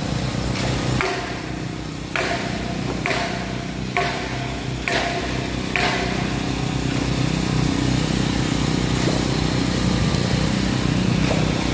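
A machine engine running steadily through a concrete pour, with about six short knocks, roughly one a second, during the first six seconds.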